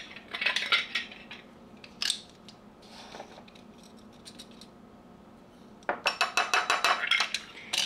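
Spoon clinking against a jar and small glass bowl as sugar is measured in, then a utensil stirring fast in the glass bowl, clicking against the glass about seven times a second over the last two seconds.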